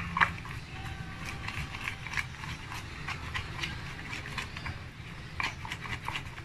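Slime being mixed after activator was added, giving irregular small sticky clicks and squelches.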